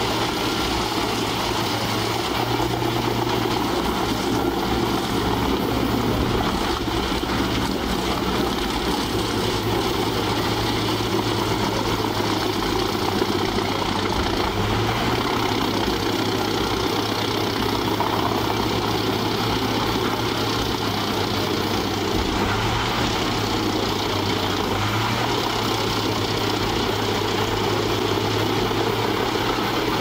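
Large truck-mounted wood chipper running steadily under load with its crane grapple feeding a log into the infeed: a constant engine drone with a low steady hum.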